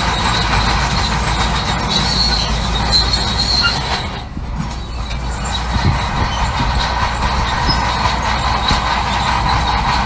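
Crawler bulldozer working, its diesel engine running under a steady squeal and clank of the steel tracks. The sound drops briefly about four seconds in, then carries on.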